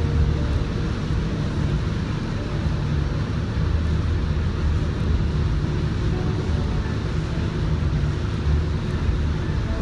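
Paint spray booth exhaust fan running steadily, a constant rushing noise with a strong low rumble.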